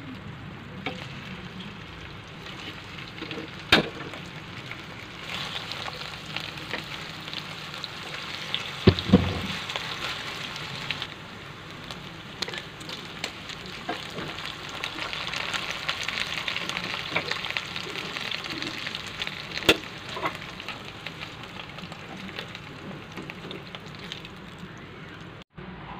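Lemongrass-marinated pork loin slices sizzling in hot oil in a nonstick frying pan during their second frying. The sizzle grows louder about five seconds in. There are a few sharp clicks from chopsticks against the pan and a louder knock about nine seconds in.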